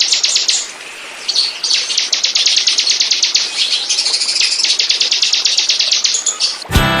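Bar-winged prinia (ciblek) song: fast runs of sharp, high repeated notes, about ten a second, broken by a short pause about a second in. Music cuts in abruptly near the end.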